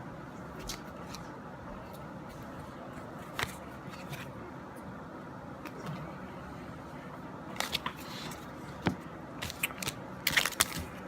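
Scattered light clicks and rustles of trading cards and foil pack wrappers being handled, over a steady room hum, turning into dense crinkling near the end as a pack wrapper is worked open.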